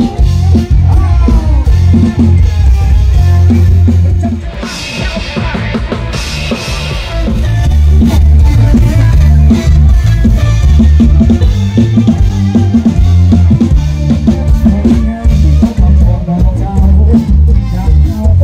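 Live Thai ramwong sam-cha dance music, with a drum kit and electric bass, played loud through a sound truck's speaker stacks. About four seconds in, the bass and kick drum drop out for a short break of about three seconds, then the full band comes back in.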